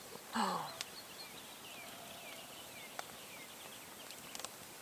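A bird calling a run of short, high notes that each slide downward, about three a second, over a quiet outdoor background. Just before the bird, a brief falling vocal sound.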